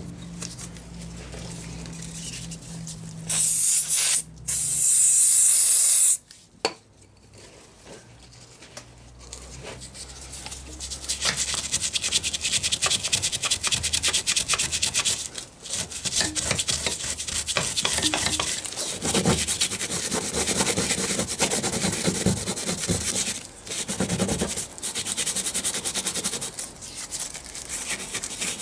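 A paintbrush scrubbing solvent into softened underseal on a car's floor pan, in quick, continuous rubbing strokes. Before the scrubbing, a few seconds in, come two loud hissing bursts.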